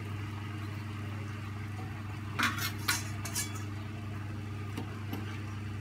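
A metal ladle clinking against a steel pot of rasam, several quick clinks about two and a half to three and a half seconds in, over a steady low hum.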